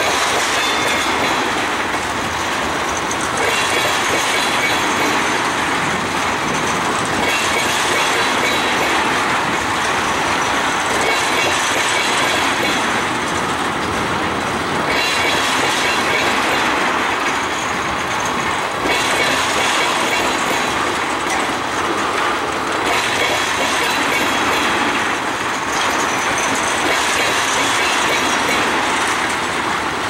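Loaded tank cars of a freight train rolling steadily past, wheels clattering over the rail joints, with a faint high wheel squeal that comes and goes.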